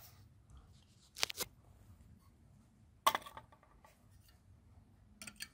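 Faint handling noises from hands working on the stove fan and its cloth-covered cooler: a short rustle about a second in, a sharp click or knock about three seconds in, and a few small clicks near the end.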